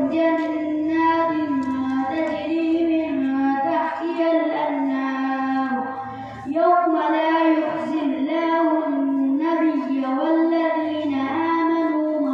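A boy reciting the Quran in the melodic qiraat style into a microphone, with long held notes and ornamented turns. He pauses briefly for breath about six seconds in, then carries on.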